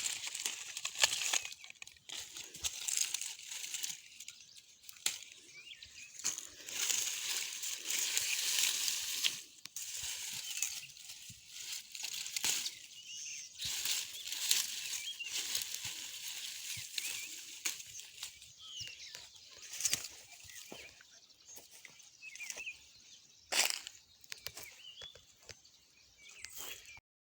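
Dry rustling and crackling of black bean plants as pods are picked off by hand, in irregular bursts with snapping clicks.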